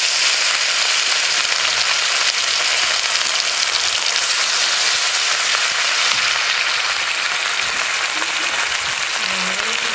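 Pieces of rohu fish rubbed with salt and turmeric frying in hot oil in a kadai: a loud, steady sizzle that eases slightly toward the end.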